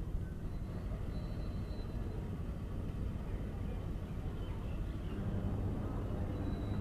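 Low steady rumble of a train, with a hum that grows a little louder about five seconds in.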